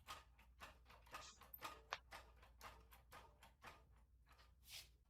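Near silence with faint, uneven clicks and taps, about three or four a second.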